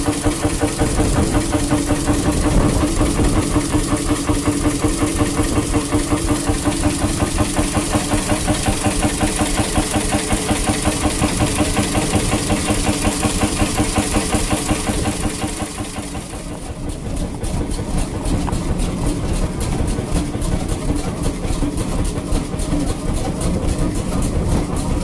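1932 Beijer 20 hp horizontal two-stroke hot-bulb engine running steadily on raw oil, with a rapid, even beat. About two-thirds of the way through, the sound dips and changes to a 1933 Hundested 39 hp stationary engine running.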